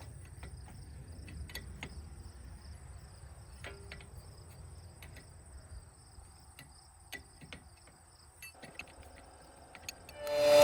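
Faint, steady cricket trill, with scattered light clicks and taps of wrench work on fuel-line fittings. Music swells in right at the end.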